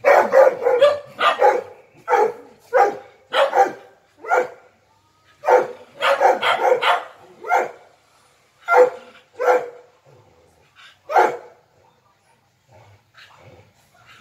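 Dog barking repeatedly at a rival dog across a gate: a fast run of loud barks at first, then single barks and short runs spaced about a second apart, growing fainter near the end.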